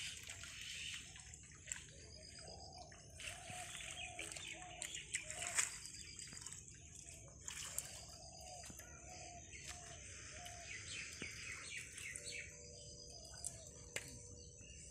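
Birds calling with repeated short chirps over a soft hiss, with light splashing and dripping of water as a mesh net trap is hauled through shallow weedy water.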